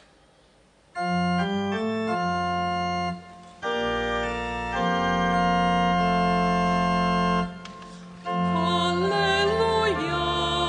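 Organ playing sustained chords as the introduction to the Gospel acclamation, starting about a second in and pausing briefly twice. Near the end a solo voice begins singing over the organ, with vibrato.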